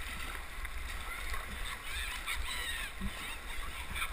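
Whitewater rapids rushing around a downriver racing kayak, with paddle strokes and water splashing against the hull close to the microphone. A brief high-pitched shout or call comes around the middle.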